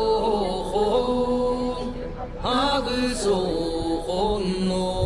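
Slow chanted singing in long held notes, each sliding up into its pitch, with a brief break about two seconds in.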